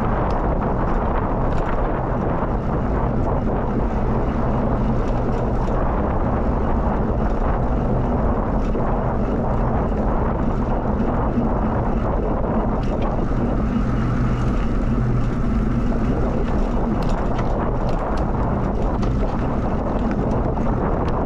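Wind rushing over the microphone of a moving bicycle, with the steady low rumble of its tyres rolling.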